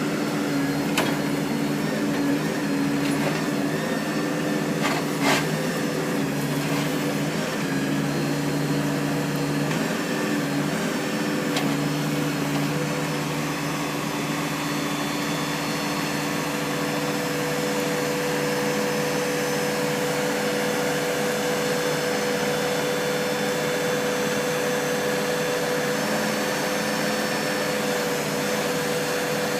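Backhoe's diesel engine running steadily, with a steady higher whine that sets in about thirteen seconds in. A few sharp knocks sound in the first twelve seconds.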